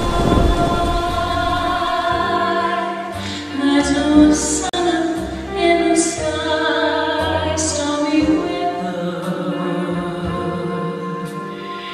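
A woman singing a slow song with instrumental backing. A rain-and-thunder effect fades out in the first second.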